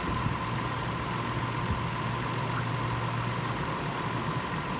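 2009 Hyundai Sonata's 3.3-litre V6 idling steadily while its cooling system is being burped of trapped air.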